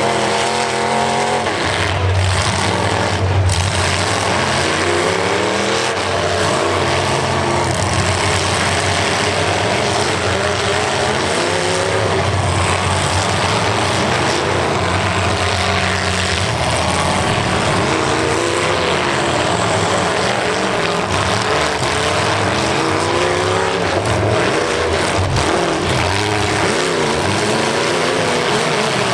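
Engines of several demolition derby cars revving up and down against each other, with two sharp bangs in the first few seconds.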